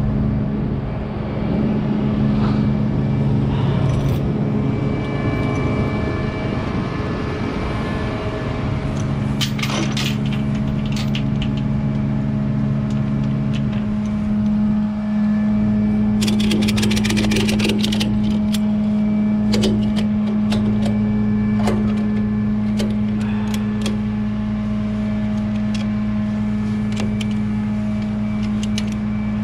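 Tow truck engine running steadily underneath, with bursts of rapid metallic clicking from a ratchet strap being worked, about nine seconds in and again around sixteen to eighteen seconds.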